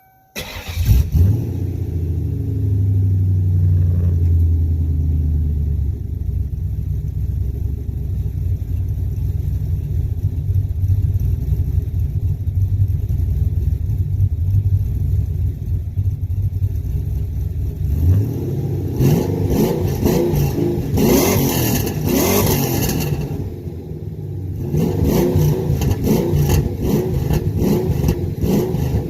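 Ford Mustang SN95's 4.6 V8 with Pacesetter long-tube headers, an H-pipe, no catalytic converters and Flowmaster 40 mufflers dumped at the rear axle. It fires up about half a second in and settles from a high idle to a steady idle. Later it is revved in two bursts a few seconds apart.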